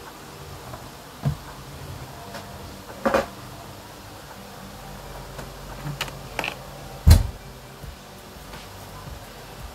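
Handling noise: a few scattered knocks and clicks of objects being picked up and set down, the loudest a deep thump about seven seconds in.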